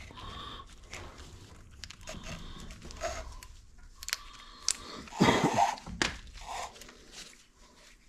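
Hands working a recoil starter as a new pull cord is fed through it: scattered clicks, rustles and small scrapes, with one louder scraping clatter about five seconds in.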